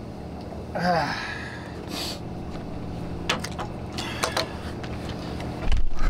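A few light knocks and clunks as a removed aluminum boat railing is handled and carried along the deck, over a steady low hum, with a short vocal exclamation about a second in. A loud low rumble comes in near the end.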